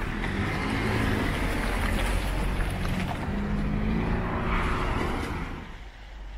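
A car driving past on a wet road: engine hum and tyre swish that hold for several seconds and then fade away about five and a half seconds in.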